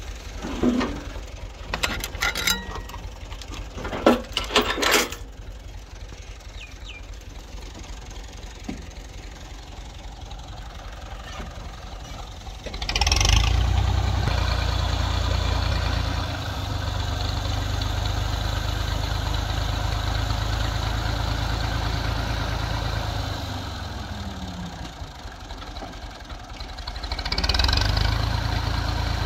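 Several sharp metal clanks as the tipping trailer's tailgate and its pin and chain are worked, then a tractor's diesel engine runs steadily much louder from about halfway through, rising again near the end as the hydraulic tipper lifts the sand-laden bed.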